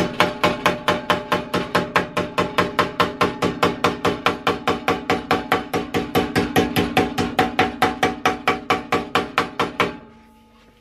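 Nylon-faced hammer planishing a folded steel sill-panel lip with light, bouncing blows, about five strikes a second in an even drumming rhythm, the steel ringing under the blows. The hammering stops about ten seconds in.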